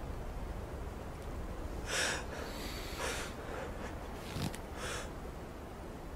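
A man crying in short, noisy breaths and sniffs: three sharp breaths about two, three and five seconds in, over a low steady rumble. There is a small click about four and a half seconds in.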